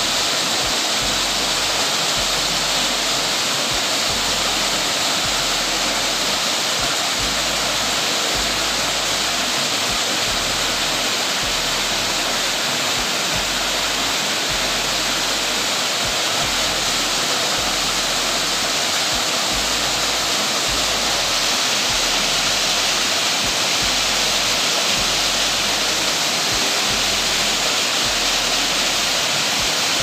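Steady rush of a small waterfall pouring into a shallow rock pool.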